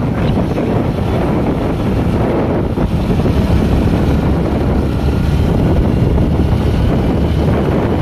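Wind buffeting the microphone of a moving motor scooter, a steady low rush with road and engine noise underneath.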